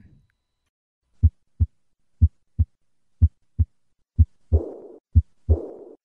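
Heart sounds: three normal lub-dub beats about a second apart, then two beats where a high-pitched murmur follows each second heart sound and fades away. This is the early diastolic decrescendo murmur of aortic regurgitation.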